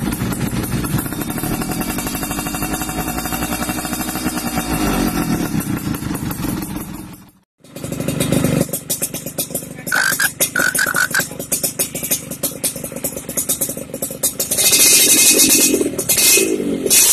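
Two-stroke motorcycles on ORP7 aftermarket racing expansion-chamber exhausts, with the crisp, tinny note called garing kemprincing. The first engine runs and revs up, then cuts out. The second, a bike that looks like a Yamaha RX-King, idles with quick throttle blips and revs up toward the end.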